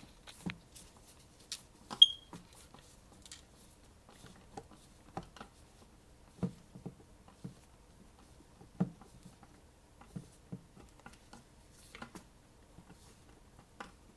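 Scattered light clicks and taps of a Phillips screwdriver and shotgun parts being handled as the butt pad screw is tightened, with one sharper metallic click about two seconds in.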